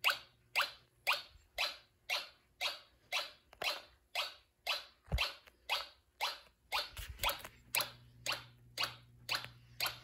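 Homemade Snap Circuits fire alarm horns set to a chime tone, sounding in march time: short chimes pulsing about twice a second.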